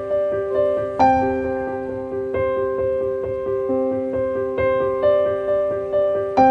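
Background music: a gentle piano piece, single notes struck every half second or so in a rolling pattern, with a brighter, louder note about a second in.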